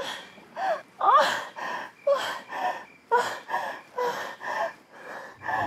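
A man gasping in quick, rhythmic breaths, some with a voiced edge, about three a second.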